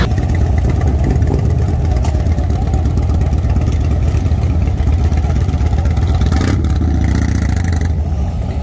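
Harley-Davidson V-twin motorcycles riding slowly past, one after another, their exhaust a loud, steady, deep rumble.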